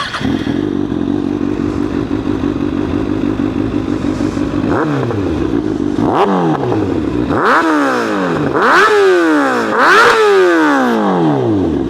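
Kawasaki ZX6R 636 inline-four idling through an M4 GP19-style exhaust fitted with a Q3 Stage 2 baffle, then blipped about five times. Each rev rises quickly and falls back to idle, and the later revs go higher and louder.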